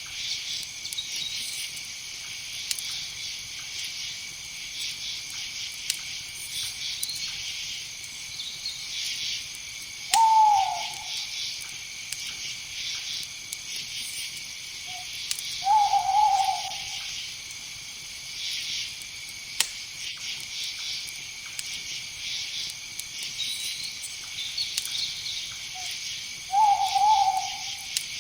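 An owl hooting three times, several seconds apart, each call a short note that falls slightly in pitch. Under it runs a steady chorus of night insects chirring.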